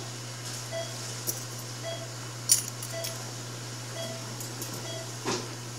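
Operating-room patient monitor beeping a short steady tone about once a second, over a steady low hum, while metal surgical instruments click and clink as a suture is worked with a needle holder; a sharp metallic click about two and a half seconds in is the loudest sound.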